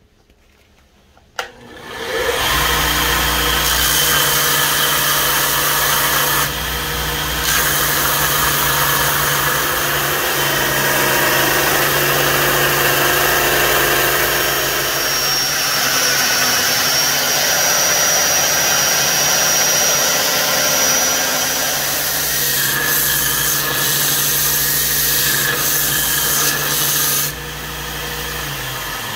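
Belt grinder switched on with a click about a second and a half in, spinning up to a steady run. The abrasive belt grinds the metal handle scales on a knife blank, with a brief letup around seven seconds. Near the end the grinding stops and the motor begins to wind down.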